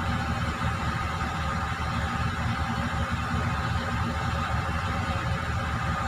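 Excavator's diesel engine running steadily, with a low, fluttering rumble.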